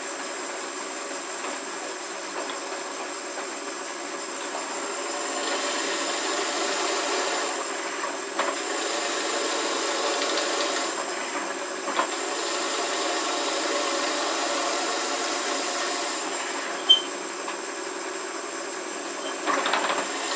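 Shopsmith in drill-press mode running with a steady whine while a counterbore bit cuts into the end grain of a pine 2x4 block. It grows louder in stretches as the bit is fed in, from about five seconds in until about sixteen seconds, with a sharp click a little later.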